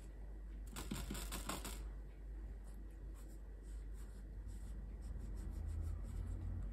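Water brush scrubbing in a watercolour pan, a scratchy rustling for about a second near the start, then fainter scratches of the brush on the notebook paper.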